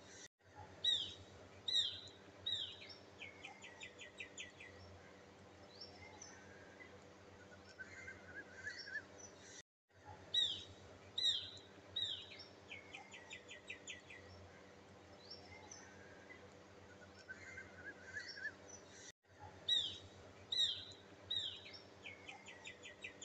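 Birdsong ambience on a short loop: three downward-sweeping chirps followed by a rapid trill, with softer twittering between, repeat in the same order about every nine and a half seconds, broken by a brief dropout between repeats.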